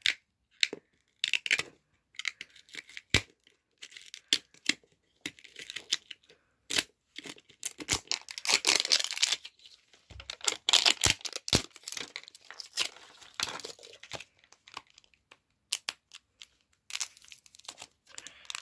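Plastic wrapper of an L.O.L. Surprise ball being peeled and torn off by hand: irregular tearing and crinkling with scattered sharp clicks, the longest tears about eight and eleven seconds in.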